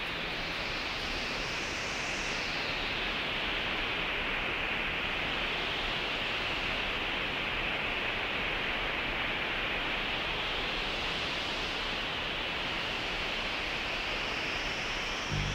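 Wind sound effect closing a rock recording: a steady whooshing hiss whose pitch slowly rises and falls, swelling about two seconds in and again near the end.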